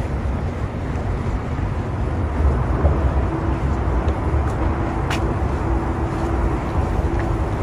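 Steady outdoor rumble of road traffic mixed with wind buffeting the microphone. A steady low hum joins about three seconds in.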